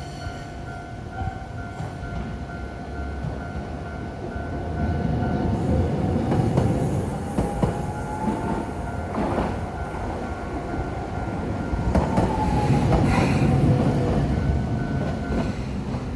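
Japanese level-crossing warning bell ringing in a quick repeating ding, while a Toden Arakawa Line streetcar rolls over the crossing. The tram's rumble swells twice, with sharp clacks of its wheels over the rail joints and a motor whine that rises and later falls.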